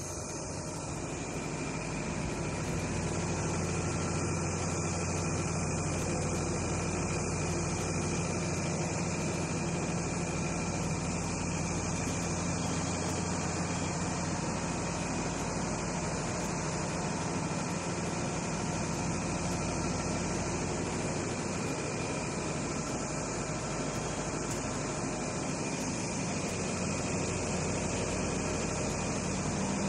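Standing Nilgiri Mountain Railway locomotive running steadily at rest: an even low hum with a constant hiss over it.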